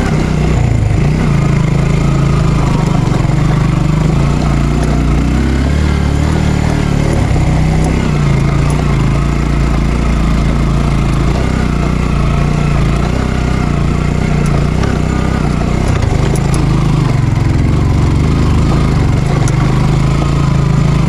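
Motorcycle engine running steadily as the bike is ridden, its note rising and falling slightly with the throttle.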